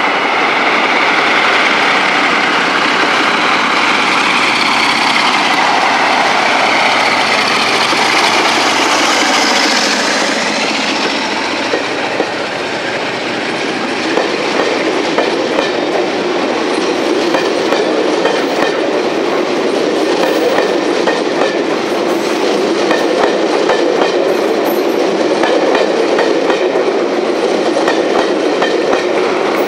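Class 47 diesel locomotive passing under power, its engine loud for about the first ten seconds. Then a rake of passenger coaches rolls by, wheels clicking over rail joints.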